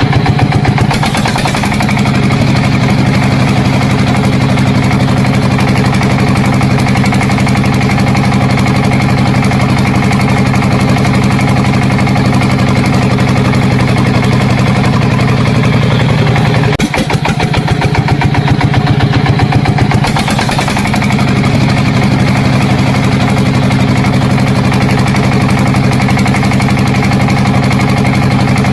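Small engine of a DIY mini tractor running steadily, with a fast even firing beat. Its note changes and runs a little louder near the start and again for a few seconds past the middle.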